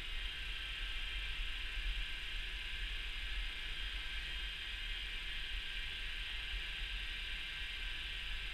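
Electric polisher motor running steadily: an even hiss with a low hum.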